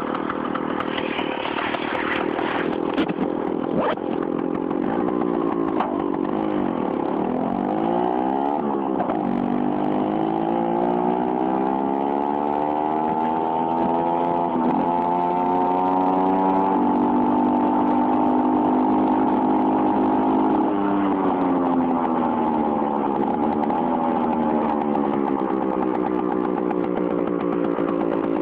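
Hercules Prima 5 moped's small two-stroke engine running through a tuning exhaust with a shortened header, with a crackle. Its pitch dips and picks up again about eight seconds in, climbs steadily for several seconds as it accelerates, holds, then falls gradually after about twenty seconds as it slows.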